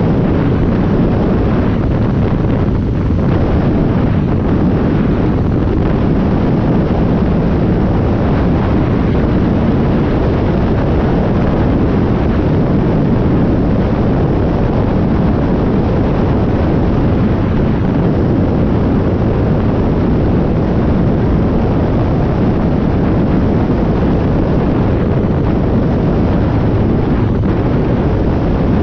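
Side-by-side UTV engine and drivetrain running steadily at speed over a sandy dirt track, mixed with heavy wind buffeting on the helmet-mounted microphone.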